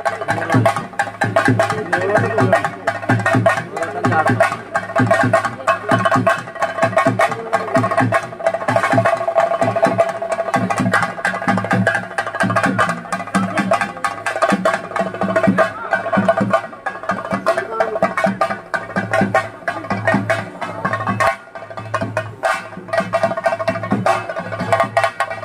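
Theyyam chenda drumming: a group of cylindrical chenda drums beaten in a fast, unbroken rhythm, with steady ringing tones held over the beat.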